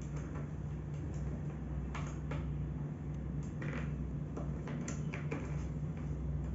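Bolts being screwed by hand into an office chair's backrest bracket: a handful of short, irregular clicks and ticks from the tool and metal parts, over a steady low hum.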